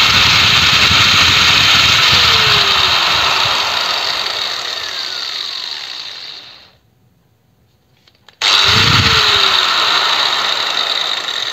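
Hitachi angle grinder running free with no load. It is switched off and winds down over about four seconds, its pitch falling, then is switched on again about 8 s in. It gets up to speed quickly and takes much longer to stop.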